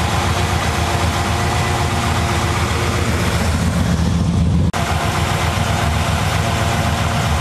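Big-block V8 engine of a 1980 dually truck idling steadily, with a momentary break in the sound about two-thirds through.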